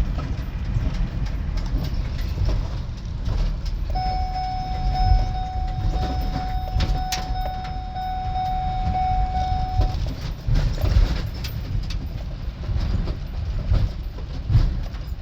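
Low, steady rumble of a vehicle on the move. A steady high tone sounds over it for about six seconds in the middle.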